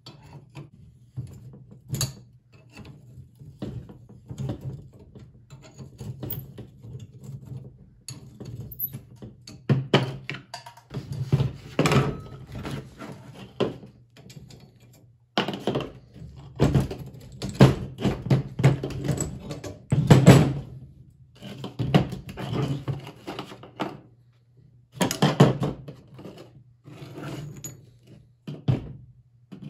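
Hand tools and rusty steel seat-frame parts from a 1910–14 Flanders 4 motorcycle knocking and clanking on a workbench as its bolts are undone and pieces are taken off. The knocks are irregular and come in clusters, louder and denser in the second half.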